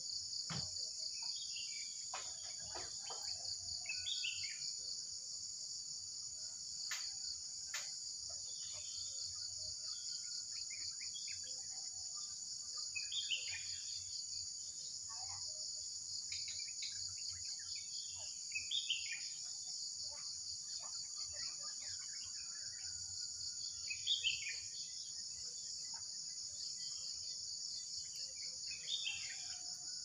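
Wild birds chirping and calling back and forth in short phrases over a steady, high-pitched insect drone.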